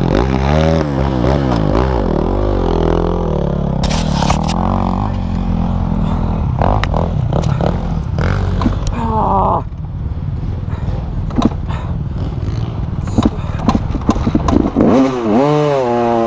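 Motocross bike engines revving up and down in pitch over rough ground, with another bike close by near the start. Sharp clatters and knocks from the dirt track break in, the loudest about four seconds in.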